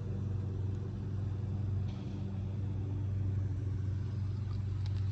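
A steady, low machine hum with a constant pitch, like a motor running.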